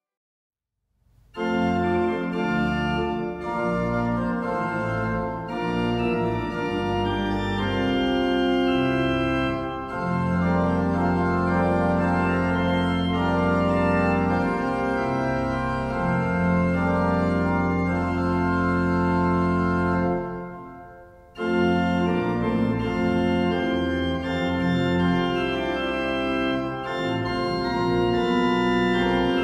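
Neo-Baroque pipe organ playing a hymn accompaniment in full, sustained chords over a pedal bass, with a bright flue registration. It starts about a second in and breaks off briefly about two-thirds of the way through before going on.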